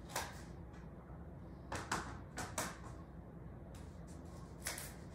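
Kitchen knife cutting the ends off a raw carrot on a plate: a few short, crisp cuts and taps of the blade on the plate, one near the start, several close together about two seconds in, and one near the end.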